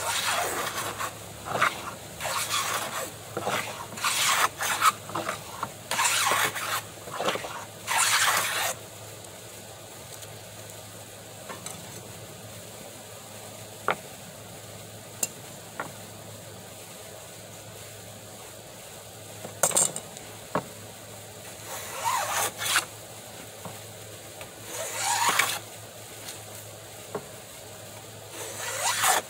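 Hand plane strokes along the edge of a board, the iron set to take a deeper bite: a quick series of strokes for the first eight seconds or so, a pause, then a few single strokes from about twenty seconds in.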